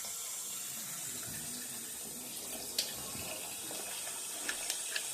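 Newly installed sink faucet running hot water into the sink as it fills, a steady rushing, with one sharp click about three seconds in and a few faint ticks near the end.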